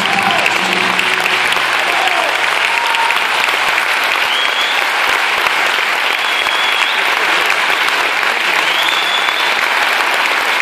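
Audience applauding steadily, as the last notes of the music die away in the first second or so, with a few short high tones over the clapping.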